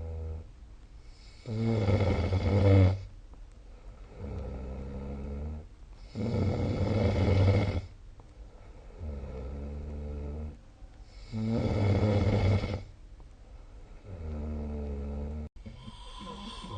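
A person snoring in a slow, regular rhythm: about every five seconds comes a loud, rattling snore, each followed by a quieter, lower snore on the next breath. Near the end the rhythm breaks with a short, higher-pitched sound.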